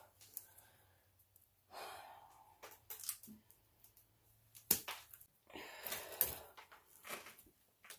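Scattered clicks and knocks from hands working at a sump pump's plastic float and pipe fittings, the sharpest just before halfway, with two short breathy rushes of noise.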